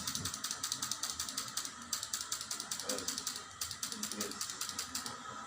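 Rapid mechanical clicking from wet-cupping (bekam) tools, coming in several quick bursts with short pauses between them.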